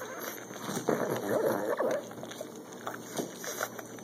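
Pug puppy eating corn on the cob: noisy snuffling breaths and chewing clicks as it gnaws kernels off the cob, busiest about a second in.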